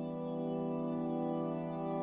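Slow ambient music with sustained held chords and no vocals.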